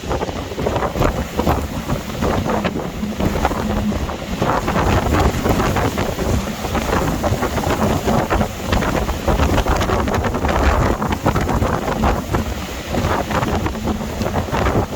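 Storm-force gale wind buffeting the microphone in gusts, a loud rumbling rush, over the noise of a rough sea.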